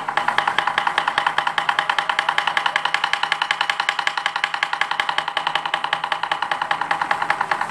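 Japanese taiko drums struck with bachi sticks in a fast, even run of strokes, about eight to ten a second, keeping up a steady drive.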